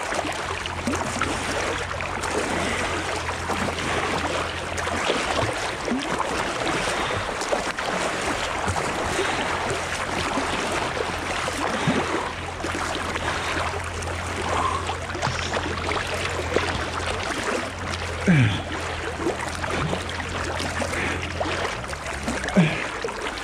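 Water splashing and sloshing around a swimmer's strokes, heard close to the water surface. A low steady hum runs underneath and drops out a few times.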